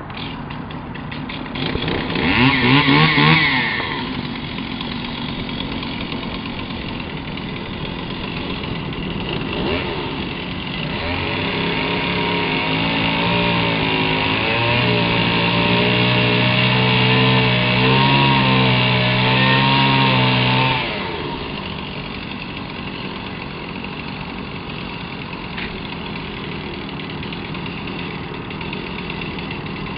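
An engine running, with a short rise in pitch about two seconds in. From about eleven seconds it runs louder, its pitch wavering up and down, and it drops away abruptly about twenty-one seconds in.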